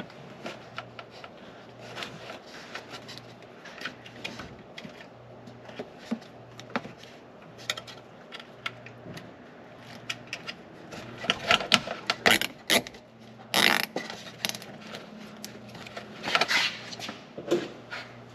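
Nylon zip ties being pulled tight, their teeth ratcheting, among scattered handling clicks, with a few louder clusters of rattling in the second half.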